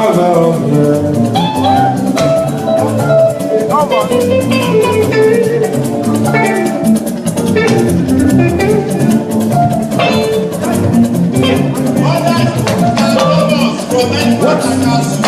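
Live band music with shakers and guitar over a steady beat.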